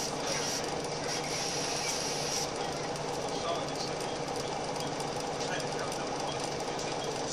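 Scania L94UB bus's rear-mounted five-cylinder diesel engine running steadily under way, heard from inside the passenger saloon.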